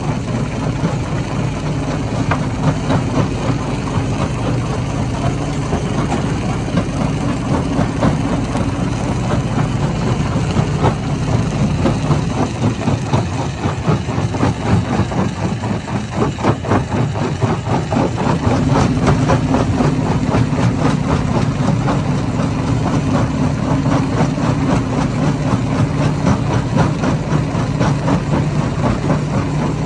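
Hammer-type stone crusher running: a steady heavy machine drone with a dense, rapid clatter of rock being broken, the clatter heaviest for several seconds around the middle.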